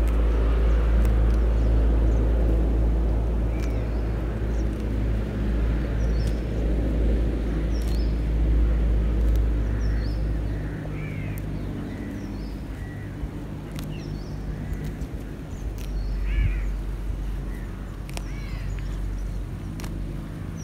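Wind buffeting the microphone in a low rumble that eases about halfway through, with small birds chirping now and then.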